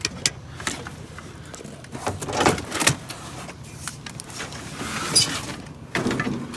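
Knocks and scraping clatter of curbside scrap metal being handled, in separate bursts about two seconds in and again around five and six seconds, over a steady low vehicle hum.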